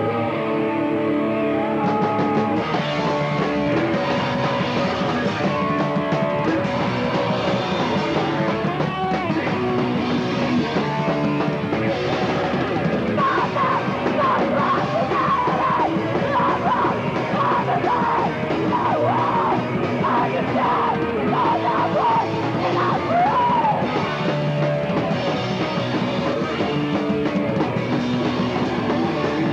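Punk band playing live: distorted guitars and drums at full tilt, with shouted vocals, recorded through a VHS camcorder's microphone in the crowd. The full band comes in about two seconds in.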